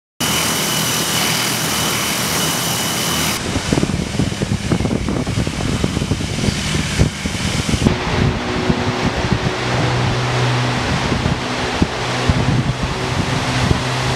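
Tupolev Tu-95 bomber's Kuznetsov NK-12 turboprops with contra-rotating propellers running: a rough engine roar that settles, about eight seconds in, into a steady low propeller drone. In the first three seconds a hiss with a high whine is heard, and it cuts off abruptly.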